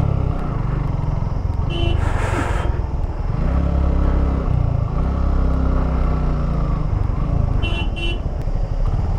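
Suzuki Gixxer single-cylinder motorcycle engine running in stop-and-go traffic, its pitch rising and falling as the throttle is opened and eased. Short horn beeps come about two seconds in and twice near the end, with a brief hiss about two seconds in.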